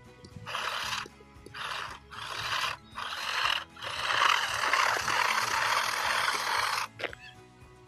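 Electric RC truck running on concrete, its motor and tyres heard in short bursts as it is throttled on and off, then one longer run of about three seconds. Steady background music underneath.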